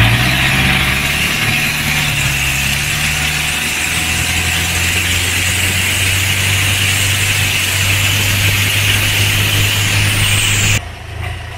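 Small motorboat's engine running steadily under way, with a loud hiss of wind and water. Near the end the hiss cuts off suddenly and the level falls, leaving a quieter engine hum.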